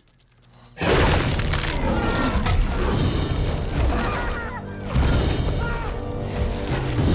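Near quiet, then about a second in a sudden loud crash opens into loud dramatic orchestral film music layered with heavy booms and crashing impacts.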